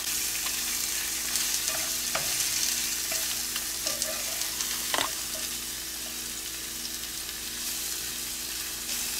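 Artichoke hearts sizzling in olive oil in nonstick frying pans over gas burners, stirred with a spatula that scrapes and knocks against the pan, with sharper knocks about two and five seconds in.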